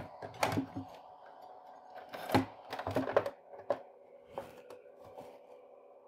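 The newly fitted cooling fan of a thermoelectric (Peltier) mini cooler running with a steady hum, which is quite loud. Over it, hands handling the plastic casing make a scatter of irregular clicks and knocks.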